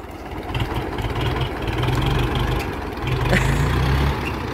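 Universal U650 tractor's diesel engine working under load as the tractor strains against a cable hitched to a tree stump, the revs surging up and easing back several times.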